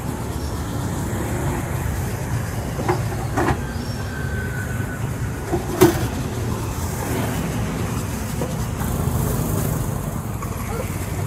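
Steady low rumble of street traffic, with a few short sharp clicks about three, three and a half and six seconds in, the last the loudest.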